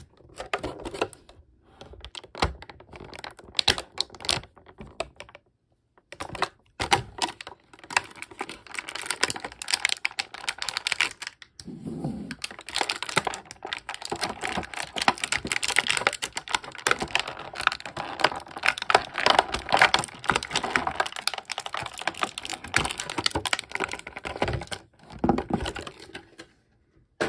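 Hands wrestling a plastic action figure out of its packaging: dense crackling and clicking of stiff plastic. There is a short pause about six seconds in, and it gets busier in the second half.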